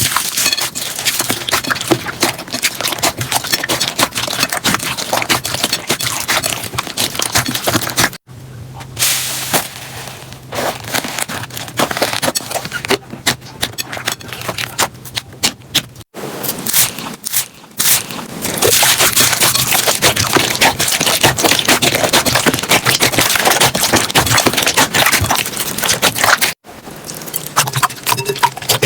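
Slime being squeezed and worked by hand, a dense run of sticky clicks, pops and crackles. The sound breaks off briefly three times as one clip gives way to the next.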